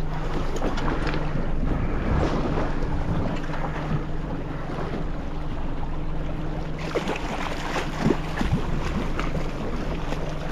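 Boat engine running steadily at trolling speed, with wind buffeting the microphone and waves washing around the hull.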